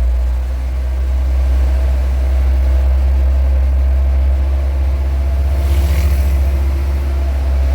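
Dump truck's diesel engine running close by with a steady, heavy low rumble, and a short hiss about six seconds in.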